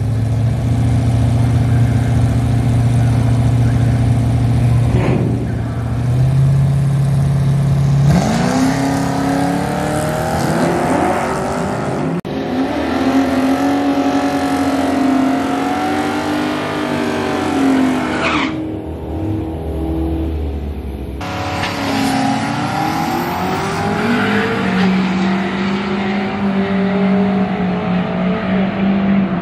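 1978 Ford Fairmont drag car's engine, heard in several short drag-strip clips. It is held at a steady rev on the line, then revs up hard at launch and pulls through the gears, its pitch climbing and dropping back. Abrupt cuts separate the runs.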